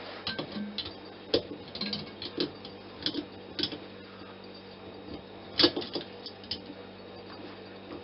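A screwdriver working at a metal fitting on a refrigerator compressor's tubing: a series of irregular light metallic clicks and taps, the loudest about five and a half seconds in, over a low steady hum.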